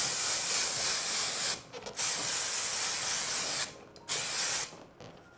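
Megashine aerosol balloon-shine spray can hissing in three bursts, two long ones of about a second and a half and a short one near the end.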